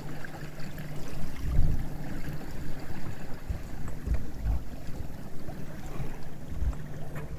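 Water rushing and splashing along the hull of a Windrider 17 trimaran sailing under way, with wind gusting on the microphone in uneven low thumps and a steady low hum underneath.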